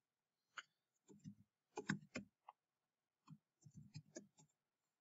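Faint keystrokes on a computer keyboard, typed irregularly, some in quick little clusters.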